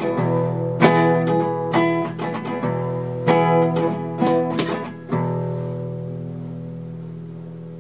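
Acoustic guitar strumming a few closing chords; the last, about five seconds in, is left to ring and fade out, ending the song.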